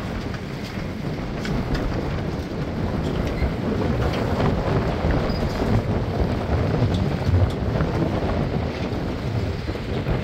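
Wind buffeting the microphone, with choppy lake water splashing and lapping beneath it.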